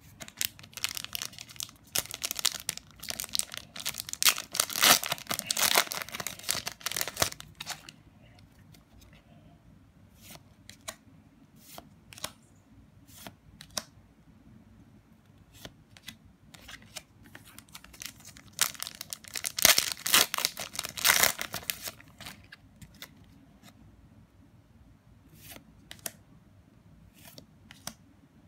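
Foil trading-card booster pack being torn open and its wrapper crinkled, in two dense crackling bouts, one from about half a second in to about seven seconds and another around twenty seconds in, with scattered light clicks of cards being handled in between.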